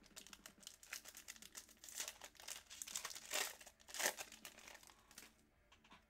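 Foil wrapper of a trading-card pack crinkling as it is torn open and crumpled by hand, a run of crackles with the loudest about two, three and a half and four seconds in.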